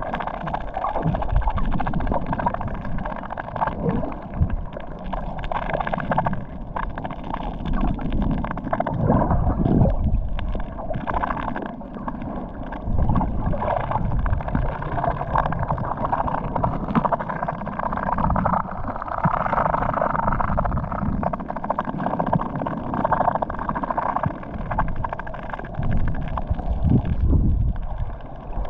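Muffled gurgling and sloshing of sea water, swelling and easing unevenly.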